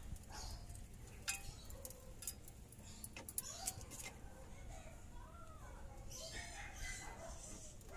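Scissor jack being cranked by hand with a rod handle: scattered light metal clicks and scrapes. Faint calls that bend in pitch sound in the background from about the middle of the clip.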